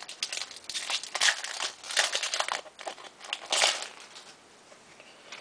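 Foil wrapper of a trading card pack crinkling and tearing as it is opened and handled, in irregular crackles for about four seconds, then quieter.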